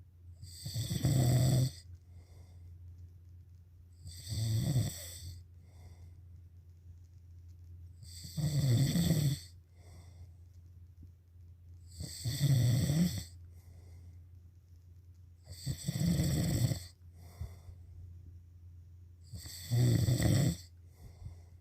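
Snoring in a steady rhythm: six loud snores, each about a second long, one roughly every four seconds. A constant low hum runs underneath.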